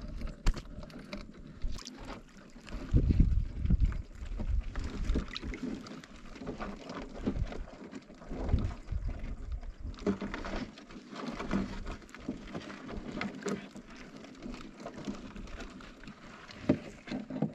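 Wind buffeting the microphone over water sloshing, with low gusty rumbles about 3 and 8 seconds in and scattered small knocks and clicks.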